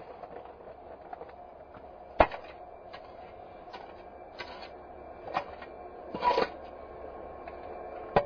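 A few sharp, irregular knocks and clicks over a low steady hum; the loudest comes about two seconds in.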